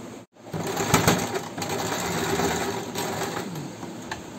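Small electric sewing machine running for about three seconds, stitching through the folded layers of a fabric rose, then stopping.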